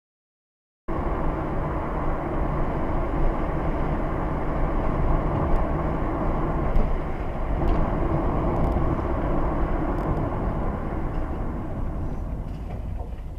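Steady low rumble and road noise of a moving vehicle, cutting in abruptly about a second in and easing off near the end.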